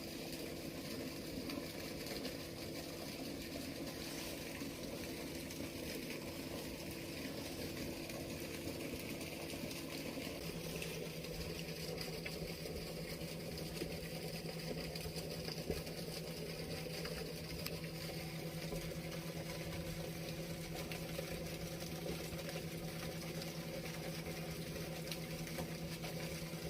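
Water running steadily through a small sea sluice gate on the ebbing tide, with a low steady hum underneath whose pitch steps slightly higher about ten seconds in.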